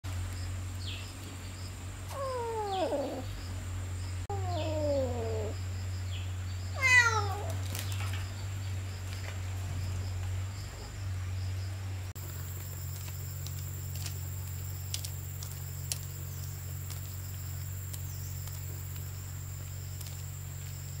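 An animal calling three times, each call a short cry falling in pitch, about two seconds apart; the third is higher and the loudest. A steady low hum lies underneath, and it changes at a cut a little past halfway, after which there are only a few faint clicks.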